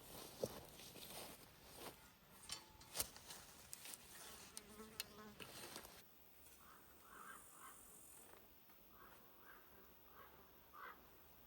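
Quiet small clicks and knocks, with a brief buzz of a flying insect about five seconds in. In the second half, faint short chirps come every second or so.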